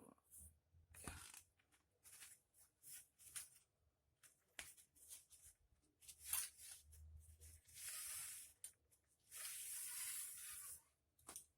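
Faint rustling and tearing of packaging being opened by hand: a run of short scratchy noises, then two longer rips in the second half.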